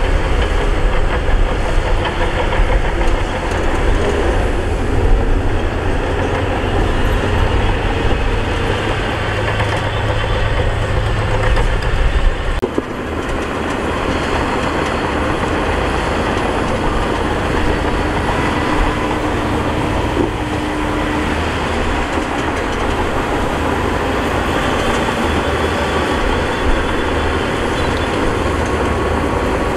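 Heavy diesel earthmoving machinery running steadily with a continuous rattling clatter. The deep engine rumble drops off abruptly about halfway through.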